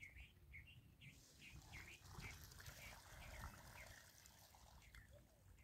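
Faint bird calls: short high notes repeated about twice a second, with a little water sloshing in a plastic tub as live fish are handled in it.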